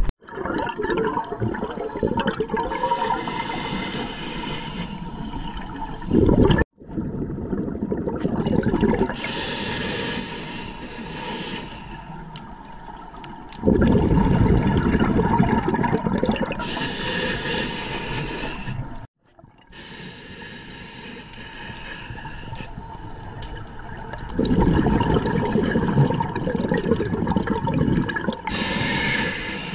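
Scuba regulator breathing underwater: hissing inhalations alternate with louder low rushes of exhaled bubbles, several breaths in all. The sound drops out abruptly a few times.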